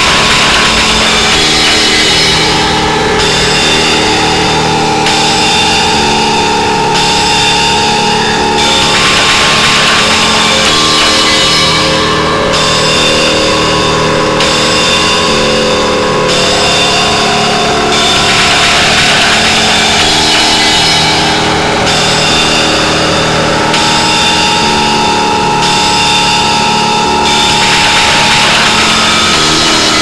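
Doom drone and harsh noise music: a loud, dense wall of distorted, sustained droning tones, with a harsher hiss swelling in and out every few seconds.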